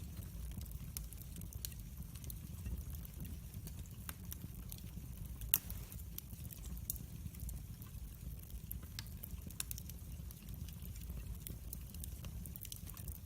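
Wood fire burning in a fireplace: a low steady rumble of flames with scattered crackles and snaps, one louder pop about halfway through.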